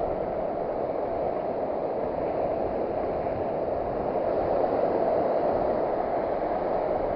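Steady rushing of ocean surf breaking on a sandy beach, swelling slightly midway.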